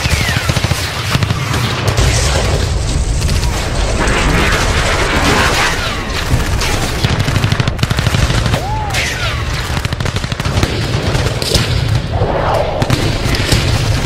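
Sustained battle gunfire: rapid automatic-weapon bursts with heavier booms mixed in. A few short whistling sounds slide down in pitch near the start and again about nine seconds in.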